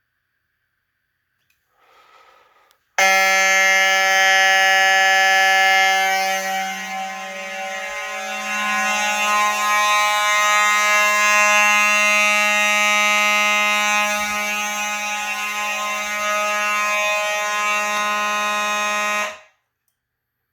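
Mechanical fire alarm horn sounding on continuous coding: a loud, steady, buzzy blare that starts abruptly about three seconds in and cuts off suddenly after about sixteen seconds when the alarm is silenced at the panel.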